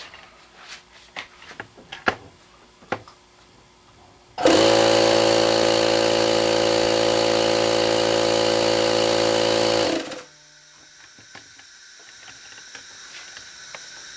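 Tool Shop AT01204-6 2.5 hp air compressor switched on after a few handling clicks. It starts about four seconds in and runs steadily with an even hum for about five and a half seconds, then cuts off abruptly: the freshly rebuilt pump running correctly. A faint hiss follows.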